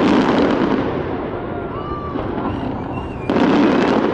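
Fireworks display with big shells bursting into a dense crackle, the loudest bursts right at the start and again about three seconds in, with crowd voices underneath.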